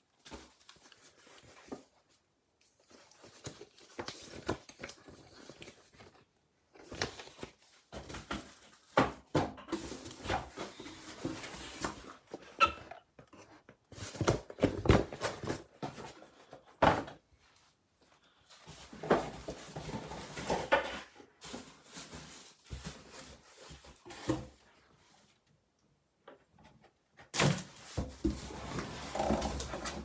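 Large cardboard PC-case box being opened and handled: irregular scraping, rustling and knocks of cardboard and foam packing, with pauses in between and the busiest handling through the middle.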